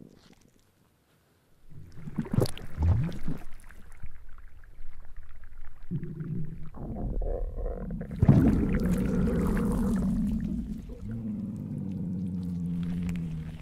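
Low gurgling, growling stomach rumbles from a heavily pregnant belly, starting after a short silence and becoming a long, steadier growl from about eight seconds in, with some rustling.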